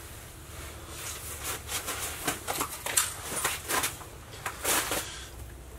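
Handling noises: an irregular string of short clicks, scuffs and rustles as a freshly caught panfish and fishing rod are handled, with a longer rustle a little before the end.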